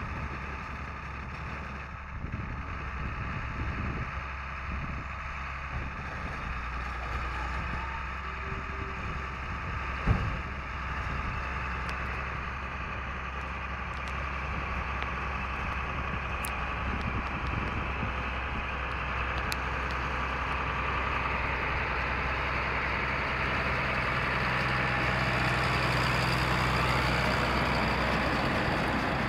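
Diesel engine of a John Deere tractor running steadily, with a New Holland 865 round baler hitched behind it. There is a single knock about ten seconds in, and the sound grows louder over the last several seconds.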